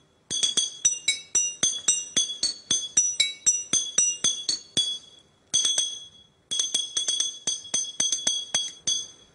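Glass bottles struck one after another, ringing out a quick tune of clear, high notes at about four or five strikes a second, with two brief breaks about halfway through.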